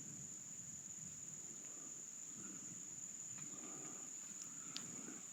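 Insects trilling in one steady, high, unbroken tone, faint, over a soft low rustle, with a small click near the end.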